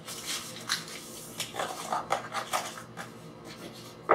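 Money being handled by hand: a run of light, irregular rustles and small clinks.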